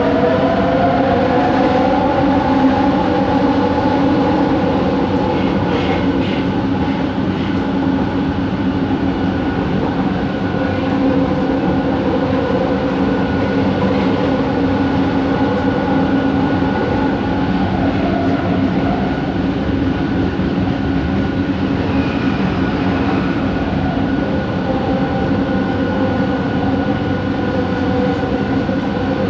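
Bombardier Innovia ART 200 train running, heard from on board: steady rolling noise under a whining motor tone that rises in pitch over the first couple of seconds and then holds. The uploader calls the motor noise weird.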